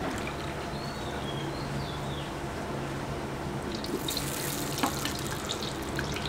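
Cooking oil poured in a stream from a steel bowl into a large steel kadai, followed by pieces of potato dropped into the oil, with more crackle from about four seconds in.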